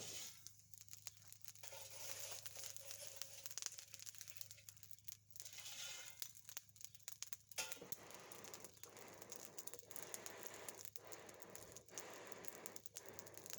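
Charcoal in a forge fire, faintly crackling and rustling, with many small irregular clicks.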